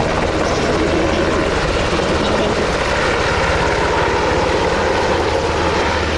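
Sikorsky S-70C helicopter running steadily, its rotor beating rapidly over the rush of its turbine engines.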